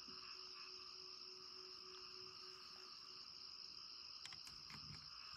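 Near silence with a faint, steady high-pitched chirring of insects, and a few faint clicks near the end.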